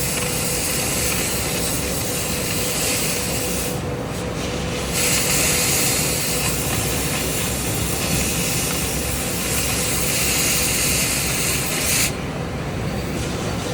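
Gas cutting torch hissing steadily. The hiss drops out for about a second around four seconds in, then again about twelve seconds in.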